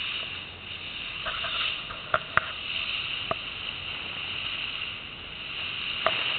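Steady rushing noise of a boat under way, with water and engine sound blended into one hiss. A few short sharp clicks stand out: three in the first half and one near the end.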